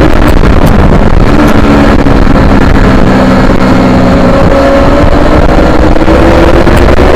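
Yamaha R3's parallel-twin engine running hard under heavy wind noise on the onboard microphone. The engine pitch holds fairly steady, then climbs gradually over the last couple of seconds as the bike accelerates.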